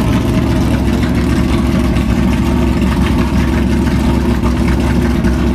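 Historic sports racing car's engine idling steadily, with a rapid, even firing beat.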